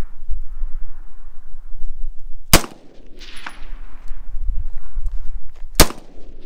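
Two AR-15 rifle shots about three seconds apart, each a sharp crack followed by a fading echo.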